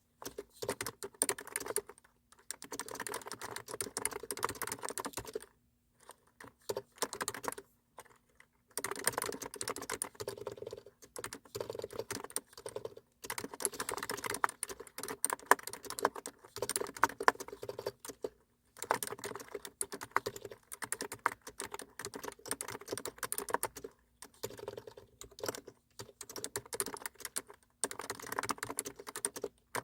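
Typing on a computer keyboard: quick runs of keystrokes broken by short pauses, the longest a few seconds near the start.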